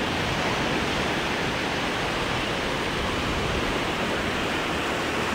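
Steady rushing of sea surf on a beach, an even wash of noise with no single wave break standing out.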